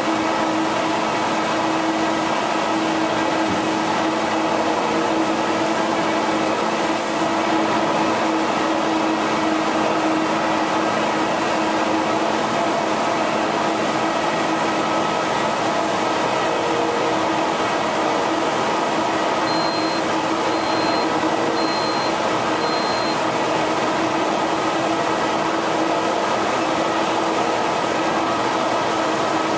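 EFI H652 wide-format flatbed digital printer running, a steady machine hum with fan-like noise. Four short, high beeps sound evenly spaced about two-thirds of the way through.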